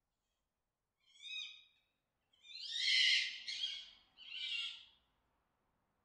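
Red fox mating calls. A short call comes about a second in, then three calls follow in quick succession, the first of these the loudest.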